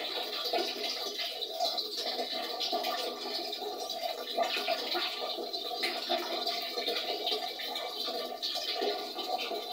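Thin stream of water running from a wall tap and splashing steadily into a ceramic pot.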